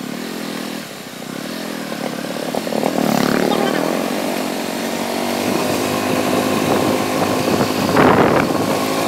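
Small motorcycle engine running while the bike is ridden, its pitch rising as it speeds up about three seconds in, with a brief louder noisy surge near the end.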